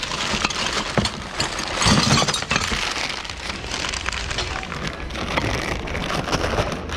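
Hands rummaging through a bin of mixed secondhand goods: a dense, continuous rustle and clatter of objects knocking and sliding against each other, heaviest about two seconds in.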